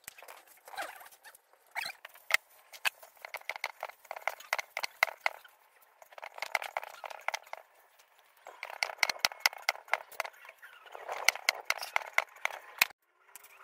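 Rolling pin clacking and tapping on a wooden board as momo wrappers are rolled out: bursts of rapid taps, each a second or two long, with short pauses between.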